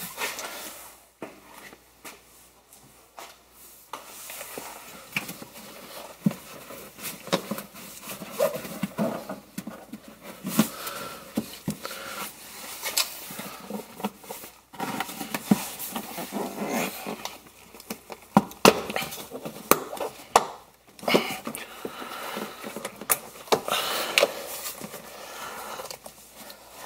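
Hand tools at work on a car's rear seat-base frame: irregular clicks, knocks and rustling as its 12 mm bolts are undone with a socket wrench.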